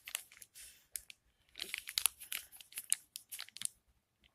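Plastic packaging crinkling and rustling as it is handled, in irregular crackles that stop near the end.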